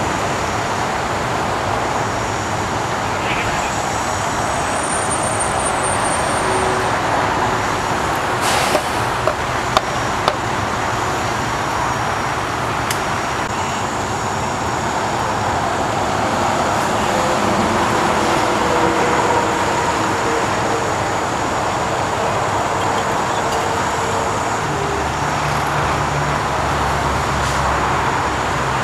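Steady highway traffic noise from passing cars and trucks, with a few short knocks about a third of the way through. A low steady hum joins in near the end.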